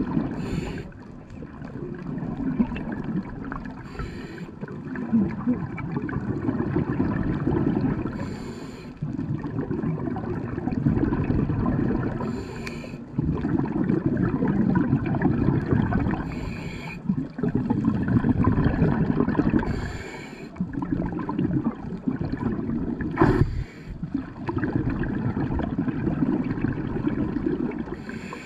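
Scuba diver breathing through a regulator underwater: a short hiss on each inhale, then a few seconds of bubbling exhaust, in a cycle about every four seconds.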